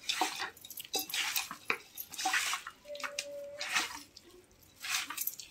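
Wet squelching of a hand kneading raw chicken pieces with masala paste and fresh herbs in a steel pot, in irregular strokes with a few light clicks. This is the marinade being pressed into the meat.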